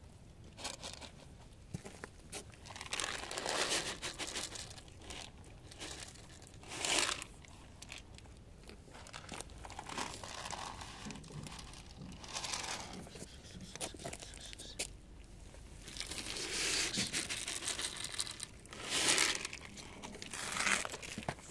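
Cats chewing dry kibble: crunching in short, irregular bursts.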